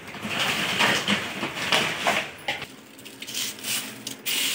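Dried herb leaves crackling and rustling as they are tipped by hand into a plastic-lined sack, with the plastic crinkling; a louder rush of pouring comes near the end.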